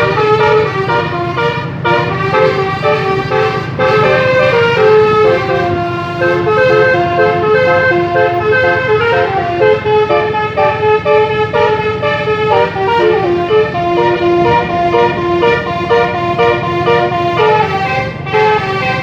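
Bus telolet horn, a set of multi-tone horns, playing a melody of stepped notes that change every fraction of a second, with the bus engine running underneath.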